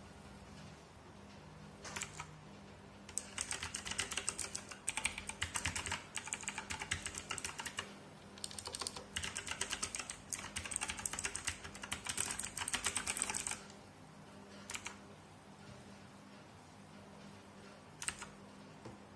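Typing on a Redragon K551A mechanical keyboard with clicky blue switches: a lone keystroke, then about ten seconds of fast, dense clacking with two short breaks, then a couple of single keystrokes near the end.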